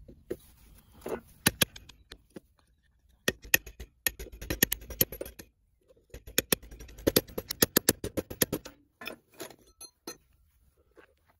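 Hammer tapping the shaft out of a rusty hand drill's frame. Sharp metallic taps come a few at first, then in two runs of quick taps several a second, then a few more near the end.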